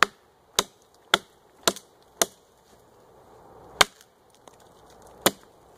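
A short 19-inch-handled axe with a fairly heavy head chopping into a log: seven sharp strikes into the wood, the first five in quick succession about two a second, then two more spaced about a second and a half apart.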